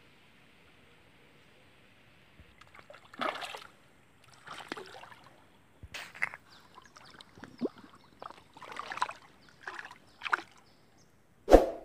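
Water sloshing and splashing in irregular bursts as an otter swims and clambers on a log right at the water-level microphone, starting about two and a half seconds in, with one sharp, loud splash or knock near the end.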